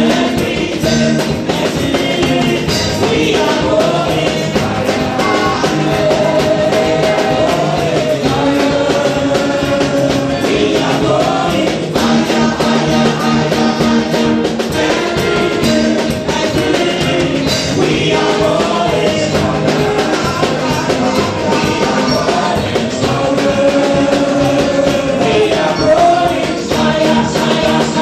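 Music: a song with singing over a band's instruments, with held, sliding vocal notes.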